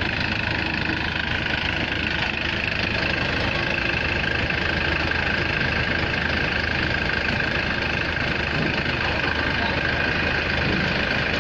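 Rice combine harvester running steadily: a continuous engine drone with a steady high whine over it.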